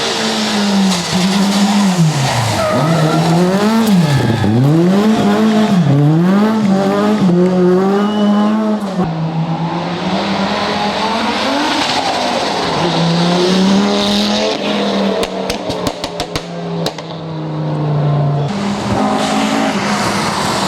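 Rally car engine being driven hard, revs rising and falling again and again through gear changes and lifts of the throttle. About fifteen seconds in, a run of sharp pops and crackles comes as the throttle is lifted.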